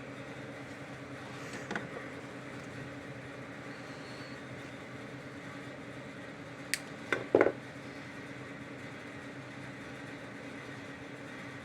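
A few small sharp clicks and taps, a cluster of three about seven seconds in, over a steady low electrical hum: tools and parts being handled during bench work on a cable connector.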